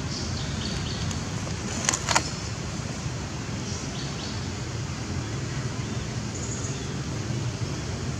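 Steady low background rumble, with two sharp clicks close together about two seconds in and a few faint high chirps later on.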